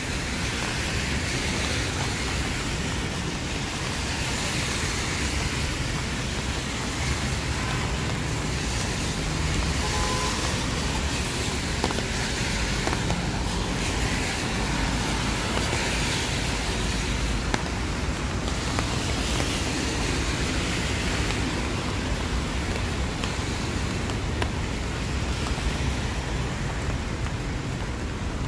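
City traffic on a rain-wet road: a steady low rumble of engines with tyre hiss that swells and fades every few seconds as vehicles pass, under steady rain.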